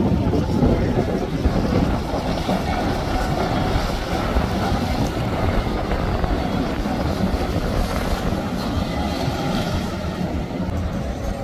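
Outboard motors on a center-console boat running at speed as it passes, with water rushing off the hull and wind buffeting the microphone. Steady throughout, dipping slightly near the end.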